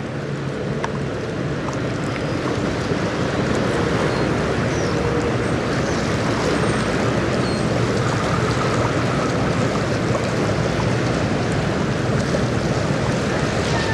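Steady rushing of choppy river waves with wind on the microphone, over a faint, steady low hum that grows slightly louder as the bulk carrier approaches.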